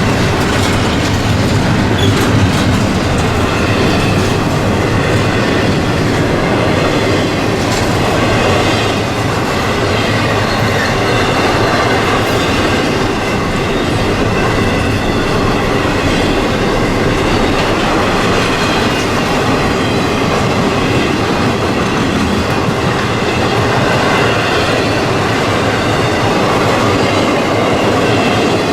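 Freight train cars rolling past at close range, wheels clacking over the rail joints with some wheel squeal.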